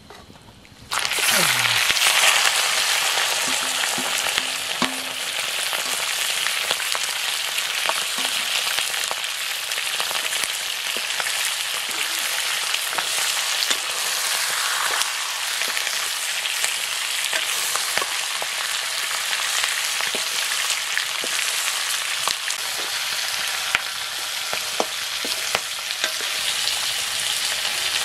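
Raw chicken pieces hitting hot oil in a black iron kadai: a sudden loud sizzle starts about a second in and keeps going steadily as the meat fries. Scattered clicks and scrapes of a metal ladle stirring the pieces in the pan.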